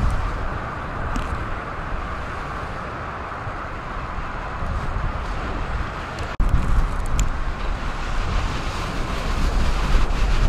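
Wind buffeting the microphone over a steady wash of choppy waves on Lake Michigan. The low wind rumble grows stronger after an abrupt change about six seconds in.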